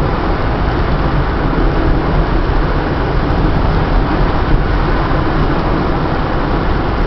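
A car driving at a steady speed, heard from inside its cabin: an even, steady rumble of tyres and engine, strongest in the low end.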